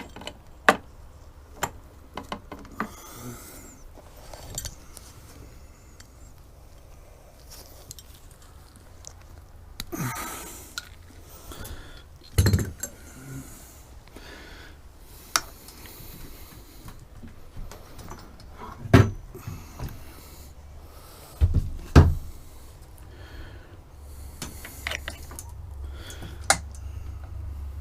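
Scattered metallic clinks and knocks of a socket wrench and tools being handled while the oil drain plug of a Yamaha 4 hp four-stroke outboard is unscrewed, the loudest knocks about 12, 19 and 22 seconds in, over a low steady hum.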